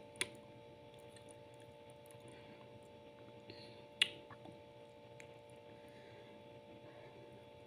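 Faint crackle and rustle of shredded pastry strands being pressed by hand into a thin plastic cup, with a sharp plastic click just after the start and a louder one about four seconds in, over a steady background hum.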